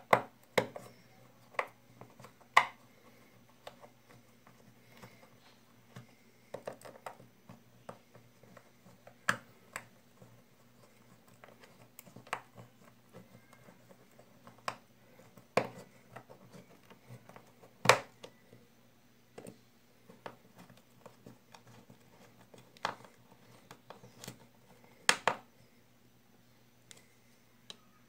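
Small, irregular clicks and taps of a screwdriver working the screws of an Abu Garcia baitcasting reel and of the reel being handled, with a faint steady low hum under them.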